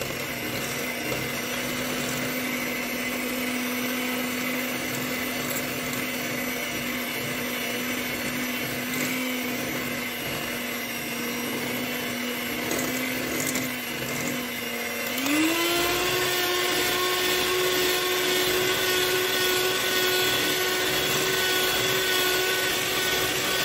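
Electric hand mixer running steadily as its twin beaters cream a stiff butter, sugar and egg-yolk cookie dough in a glass bowl. About fifteen seconds in, its hum steps up in pitch to a faster speed and holds there.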